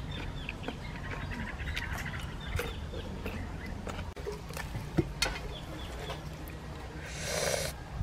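Close-up chewing and lip-smacking as someone eats, with scattered small clicks and chickens clucking in the background. A short breathy hiss comes near the end.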